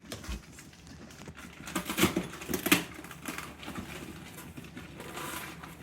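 Handling noises: light rustling with a few sharp knocks, the two loudest about two seconds in and just under three seconds in.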